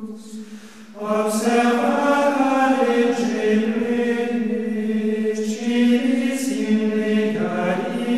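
Soundtrack of choral music: voices holding long notes over a steady low drone. It is soft for about the first second, then swells and stays full.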